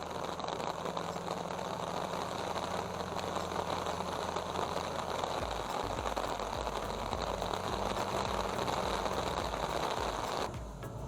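Caterpillar D7 bulldozer's diesel engine running under a steady hiss of heavy rain. About halfway through, a low, uneven throbbing sets in, and near the end the hiss drops away abruptly.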